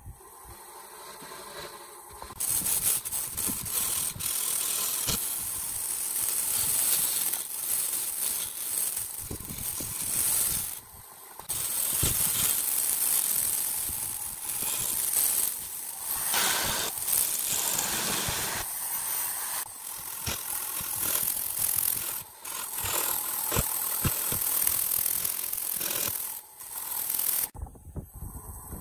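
Turning tool cutting a spinning segmented wood vase on a wood lathe: a loud, rough scraping cut with a hiss of flying shavings. It starts about two seconds in after the lathe runs alone with a faint hum, and breaks off briefly several times where the tool is lifted, stopping shortly before the end.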